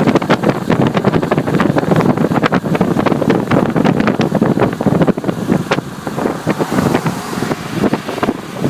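Strong storm wind buffeting the microphone: a loud, rough rush broken by rapid, irregular crackles.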